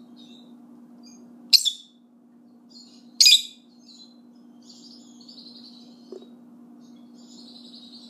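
Pet lovebirds chirping: two sharp, loud chirps about a second and a half and about three seconds in, then softer chattering twitters, over a faint steady low hum.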